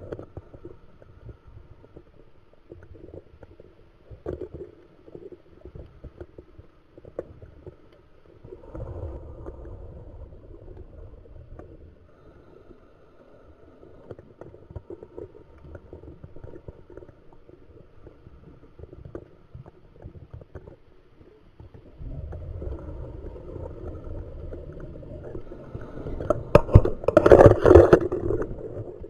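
Muffled underwater sound of a scuba diver's regulator exhaust: gurgling bubble rushes, a short one about a third of the way in and a longer, louder one near the end, over faint scattered clicks.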